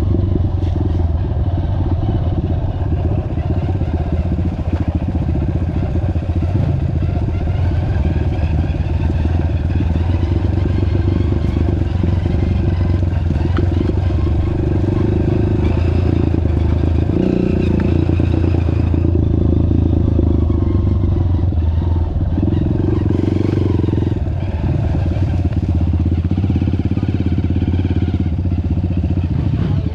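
Off-road trail vehicle's engine running steadily and close up, with little change in speed.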